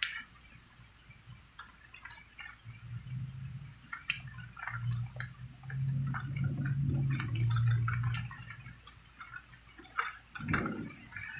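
Raindrops dripping and pattering in irregular ticks. A low rumble swells in the middle and fades, and a single heavier thud comes near the end.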